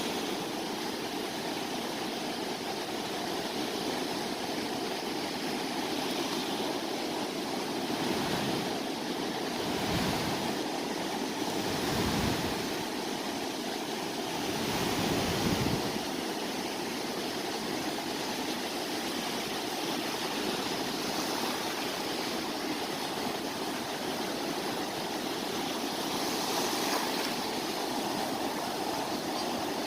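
Sea waves washing onto the shore, a steady rushing wash with several louder surges as waves break, mostly a few seconds apart in the middle of the stretch and once more near the end.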